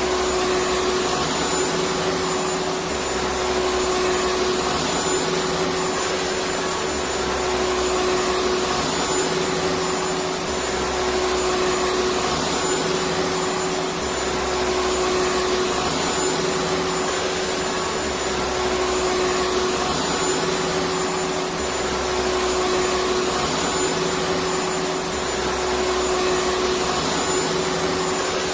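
Vacuum cleaner motor running continuously with a steady rushing noise and a constant whine, under a low rumble that comes and goes every two seconds or so.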